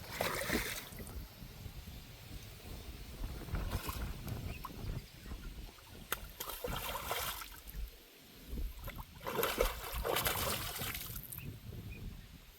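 Water splashing and sloshing in several bursts of a second or two as a hooked carp is played in, over a low rumble of wind on the microphone.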